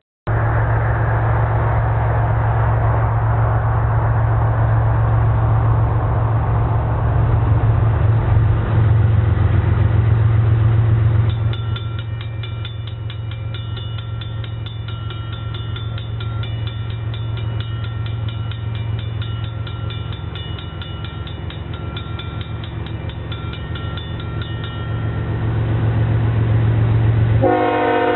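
Diesel freight train passing with a steady low engine drone and rolling noise. A bit under halfway through, a rapidly repeating grade-crossing bell starts ringing, and near the end the locomotive's multi-note air horn sounds.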